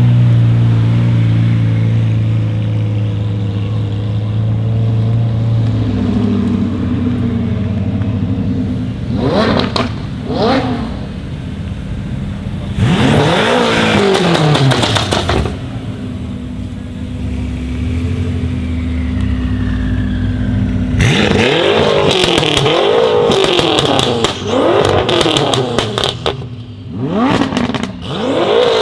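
BMW M5 F10's twin-turbo V8, with catless downpipes and an M Performance exhaust, idling and then revved: two quick blips, a longer rev, then a run of repeated revs near the end. Crackles and pops come from the exhaust as the revs drop.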